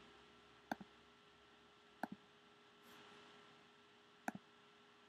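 Computer pointer button clicked three times, about a second and a half apart, each click a quick pair of ticks, over a faint steady electrical hum.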